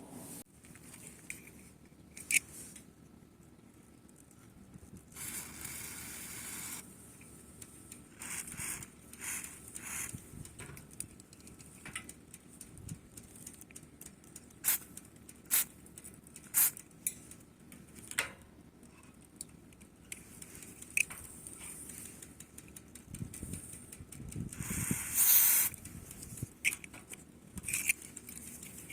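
Aerosol lubricant spray hissing in two bursts, one of about a second and a half around five seconds in and a louder one near the end, with scattered sharp clicks in between.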